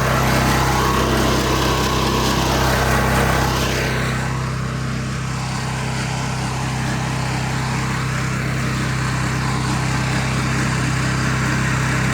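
Gas engine of a pressure washer running steadily. A hiss rides over it for about the first four seconds, then the engine goes on alone.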